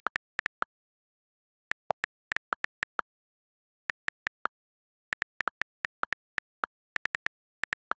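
iPad on-screen keyboard key clicks: the iOS typing sound, one short tick for each key tapped, in irregular quick runs with short pauses between words.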